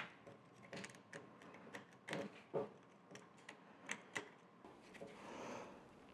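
Faint, irregular small metal clicks and scrapes as a screwdriver picks and pries at a stuck part in the cast-iron jaw of a Wilton bullet vise, with a soft rubbing scrape about five seconds in.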